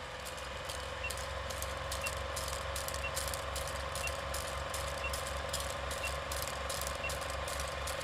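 Old film projector sound effect: a steady mechanical whirr with a rapid low flutter, scattered film crackle and pops, and a faint tick about once a second.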